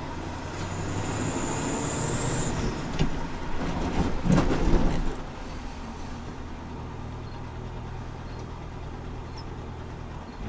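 Heavy vehicle's engine running in a steady low drone, heard from inside the cab, with a louder rushing noise that swells for about two seconds near the middle and then drops away.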